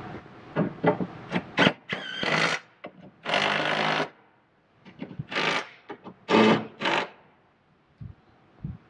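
Cordless power tool driving bolts in a series of short bursts, spinning up and stopping, as the brace bolts are snugged up. The longest burst is a bit under a second, and there are two short clicks near the end.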